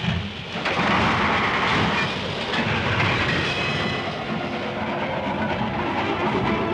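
Sound effect of a speeding train on the rails: a loud rushing noise that swells about half a second in. Music starts to come in faintly in the second half.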